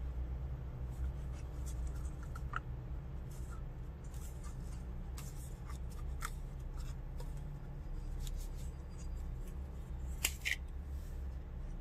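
Hands handling takeaway food containers: light clicks and crinkles of thin plastic as a clear plastic lid is worked off a small tub beside a plastic bag, with a sharper plastic click about ten seconds in. A steady low hum sits under it.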